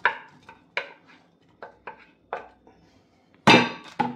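Metal utensil clinking against a cooking pan: a series of sharp taps, then a louder clatter about three and a half seconds in.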